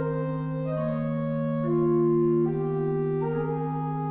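Pipe organ playing slow sustained chords over one steady low note held underneath, the upper voices moving to new notes every second or so.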